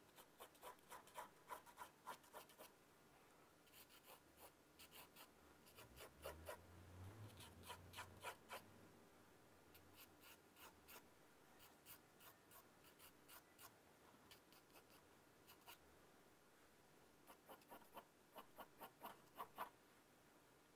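Faint scratching of a sketching pencil on drawing paper: runs of quick back-and-forth strokes with short pauses between them, as lines are gone over again and again to darken them.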